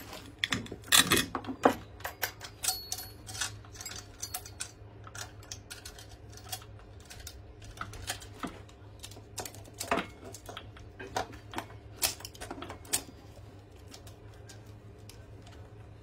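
Oregon 73EXL saw chain being fitted around a chainsaw's solid bar and drive sprocket: metal links clinking and rattling against the bar. The sharp clicks come thick and fast for the first few seconds, then more sparsely, and die down near the end.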